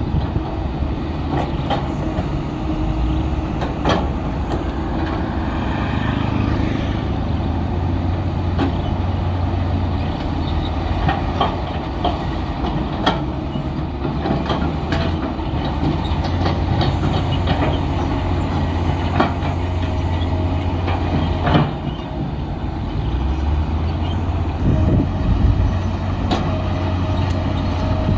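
Komatsu D53P crawler bulldozer's diesel engine running steadily under load with a deep, low rumble, over which come frequent metallic clanks and knocks of the machine at work.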